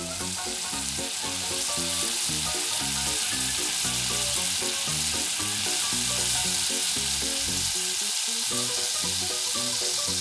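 Hot cooking oil sizzling steadily as breaded sausage and cheese pieces deep-fry in it.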